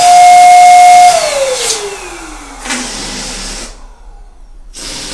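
Electric balloon pump running as it inflates two latex balloons: a loud motor whine that holds steady, then drops in pitch as the motor winds down about a second in. Two shorter rushing bursts follow later.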